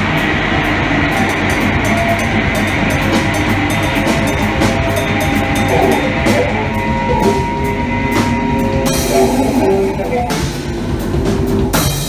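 Live experimental improvisation by an ensemble of cello, percussion, guitar and electronics: held drones and tones under a dense scatter of sharp clicks and hits.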